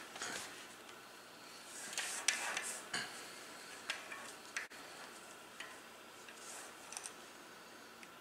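Hands handling a bicycle wheel at its rebuilt coaster brake hub: scattered small metal clicks and rustling, busiest about two to three seconds in, with a few sharp ticks after.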